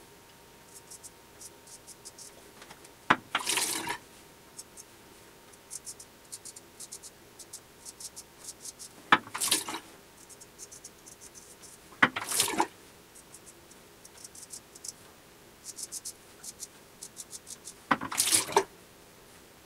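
Dovo 5/8 straight razor shaving lathered stubble: many short, quiet scraping strokes, with four louder, longer scrapes spread through the stretch.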